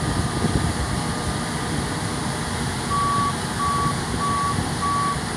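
Case IH 5140 Axial-Flow combine running while unloading grain through its auger, a steady mechanical rumble. An electronic warning beeper sounds at one steady pitch about one and a half times a second, faint at first and much louder from about three seconds in.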